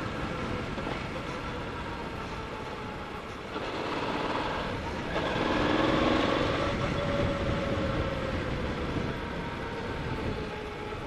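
Motorcycle engine running under way, with wind rushing over the microphone. The engine note dips about four seconds in, then rises and grows louder before easing off slowly.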